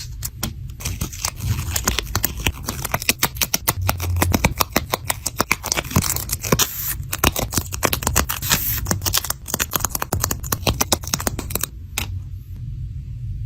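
Paper being handled for a papercraft: rapid crisp scrapes and crackles of paper being worked, which stop about twelve seconds in, over a low steady hum.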